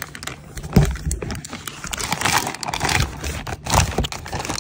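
Clear plastic packaging rustling and crinkling around a wooden bowl as it is handled and lifted inside a cardboard box, with small clicks of handling. There is a louder knock about a second in and another near the end.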